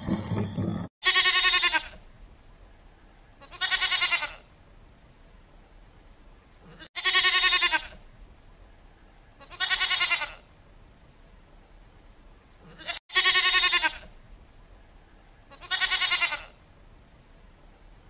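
Goats bleating: six wavering bleats, each about half a second to a second long, coming in three matching pairs about six seconds apart. The first second holds the end of a different, lower sound that cuts off before the first bleat.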